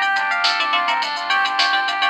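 Preloaded polyphonic ringtone playing on a Casio G'Zone Type-V phone: a quick melody of bright synthesized notes, with several notes sounding together.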